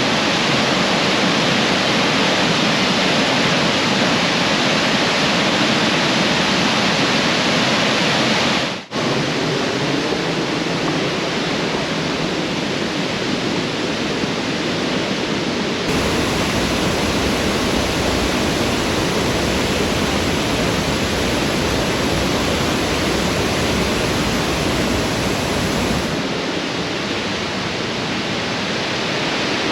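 Steady rushing roar of Burney Falls, a 129-foot waterfall, pouring into its pool. There is a brief dropout about nine seconds in, and a deeper rumble through the middle stretch.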